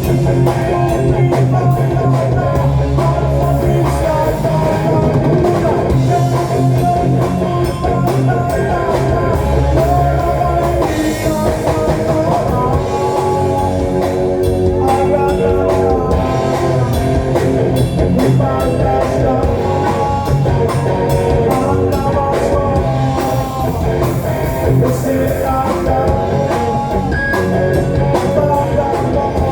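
Rock music with drums, electric guitar, bass and singing, played through a DIY amplifier and Infinity REF-9633ix speakers.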